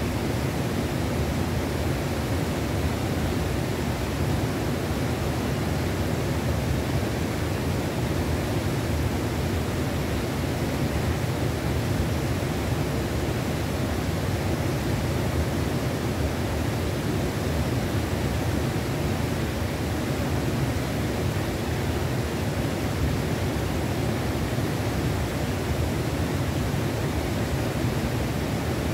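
Steady noise of a trout river's flowing water.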